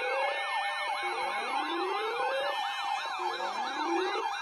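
Several emergency sirens sounding at once: a fast up-and-down yelp about three to four times a second, overlapped by slower rising and falling wails.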